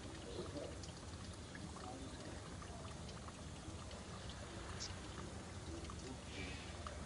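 Steady rushing noise like running or pouring water, with scattered faint ticks and clicks.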